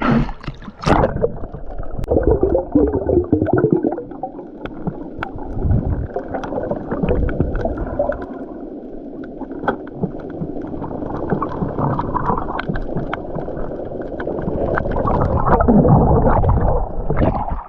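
Muffled underwater sound of a diver in the water: gurgling and bubbling, with scattered sharp clicks and a louder swell of water noise near the end.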